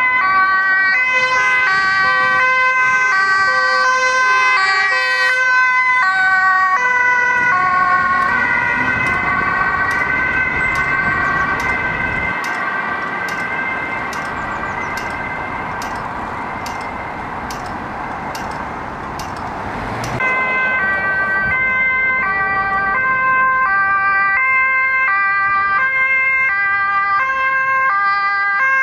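Dutch ambulance two-tone siren alternating between a high and a low note. Through the middle it drops back under the sound of passing traffic, and about two-thirds of the way through it returns loud, another ambulance's two-tone siren sounding.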